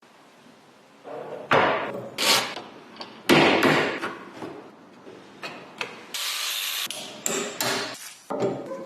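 Restoration work on an antique hand wringer: a run of irregular sharp metal knocks and clanks with short ringing, and a brief hiss about six seconds in.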